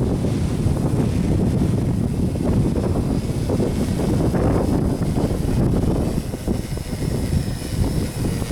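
Strong wind buffeting the microphone, a loud, gusting low rumble. A faint high whine comes in over it in the second half, from the tricopter's electric motors.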